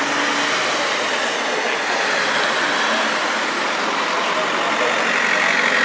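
Cars driving slowly past on the road, a steady rush of tyre and engine noise that swells near the end as a lowered VW estate car approaches.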